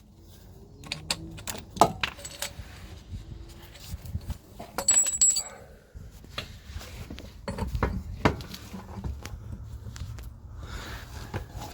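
Metal-on-metal clinks and knocks as a Holden Commodore's tail shaft and tools are worked loose under the car, with a ringing clink about five seconds in.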